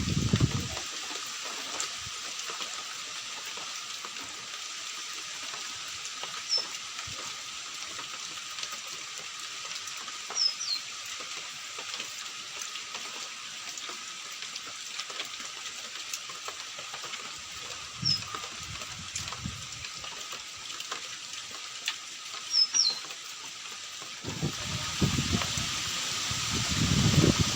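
Steady hiss of falling rain, with a bird's short, high, falling chirp every few seconds. Low rumbling comes in near the end.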